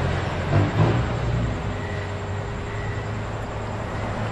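Steady low hum with a broad hiss over it, and two faint knocks a little under a second in.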